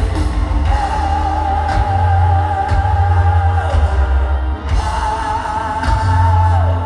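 Heavy metal band playing live in an arena: a male singer holds two long high notes, each ending in a downward slide, over heavy bass and drums.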